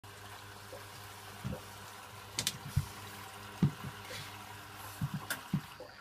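Bendix 7147B washing machine filling at the start of a wash: water trickling and gurgling into the drum over a steady low hum, with two sharp clicks.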